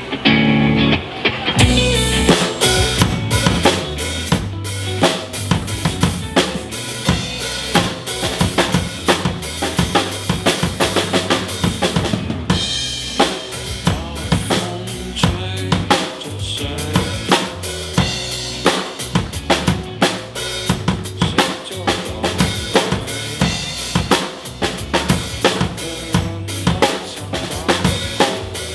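Drum kit played in a driving rock beat, with kick drum, snare with rimshots, and cymbals, over a backing band track with bass and guitars. A quieter lead-in gives way to the full beat about two seconds in.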